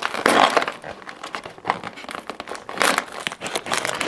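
Thin cardboard box being opened by pushing in its push-in tabs: crinkling and crackling of the cardboard in a few bursts, with small clicks.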